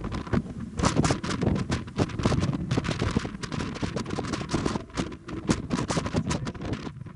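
Wind buffeting the camera microphone on the open deck of a moving sightseeing ship, an uneven run of rumbling gusts and crackling thumps.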